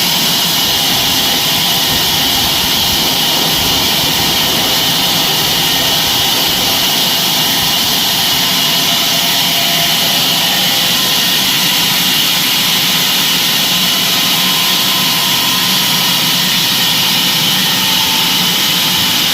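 Bandsaw sawmill running steadily, a loud, even machine noise with a strong high hiss that does not change.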